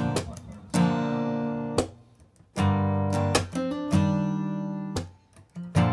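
Background music on acoustic guitar: single chords strummed and left to ring, about one a second, with two short pauses.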